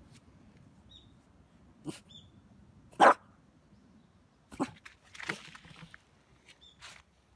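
Small dog giving a few short, separate barks, the loudest about three seconds in.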